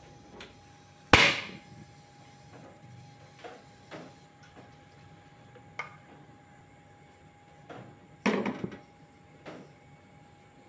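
A gas stove burner is lit with a single sharp snap of its igniter about a second in. About eight seconds in, a saucepan is set down on the metal burner grate with a short clatter.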